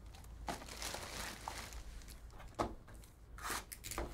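Cardboard trading-card boxes being handled and set down on a table, with a few sharp knocks and some rustling of plastic wrap. The loudest knock comes about two and a half seconds in.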